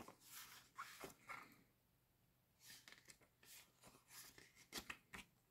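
Near silence, with a few faint, brief paper rustles as the pages of a thin booklet are handled and turned, a cluster in the first second and a half and two more near the end.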